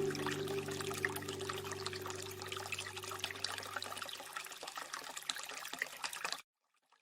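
Trickling water, a fine patter of many small drips, under low sustained music notes that die away over the first four seconds. The water sound slowly fades and then cuts off abruptly about six seconds in.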